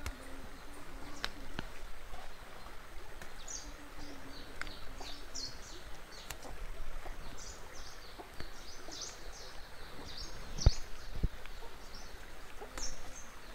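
Small birds chirping in many short, high calls through most of it, over outdoor background noise. A few sharp clicks sound now and then, the loudest near the end.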